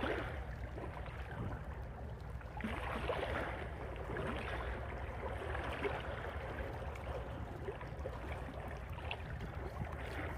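Small waves lapping and washing at a rocky shoreline, with swells that rise and fall every second or two over a steady low rumble of wind on the microphone.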